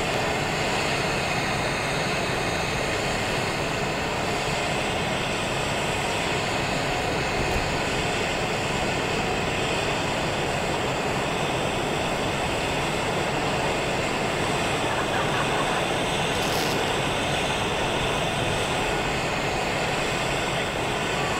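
Steady outdoor city ambience: a continuous, even roar with no distinct events standing out.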